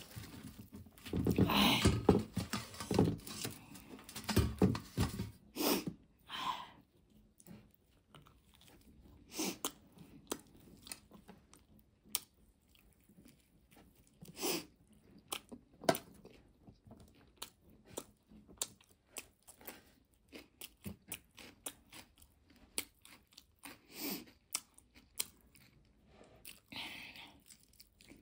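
A person eating crisp food: crunching and chewing, loud and dense for the first six seconds, then scattered crunches and mouth clicks with short quiet gaps.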